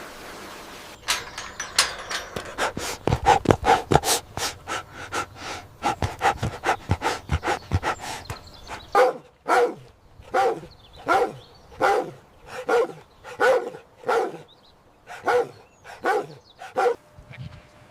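An animal calling over and over: a quick run of short sounds for the first half, then evenly spaced calls about one and a half a second.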